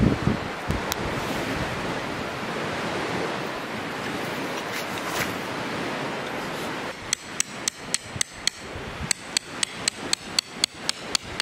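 A tent peg being hammered into the ground: a quick run of sharp strikes, about four a second, in two bursts with a short pause between, starting about seven seconds in. Beneath it is a steady wash of lake waves and wind.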